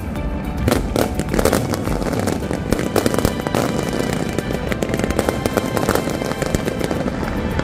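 Aerial fireworks bursting and crackling in rapid succession, over music playing in the background.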